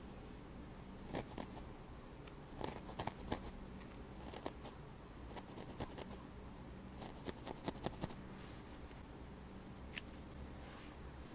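Felting needle stabbing into wool: crisp pokes that come in irregular clusters, with a pause between groups, over a faint low hum.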